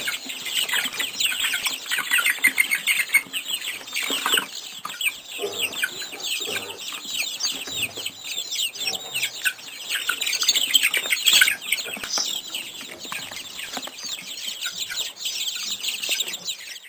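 A dense chorus of many small birds chirping at once, short high chirps overlapping continuously with no pause.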